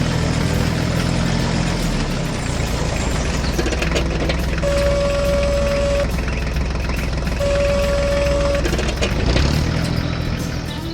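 Old tractor engine running, its note changing about two seconds in and again near the end. In the middle come two long, steady tones, each lasting a little over a second.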